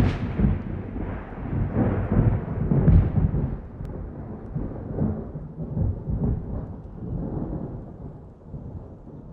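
Thunder rumbling, with surges at the start and about three seconds in, then slowly dying away.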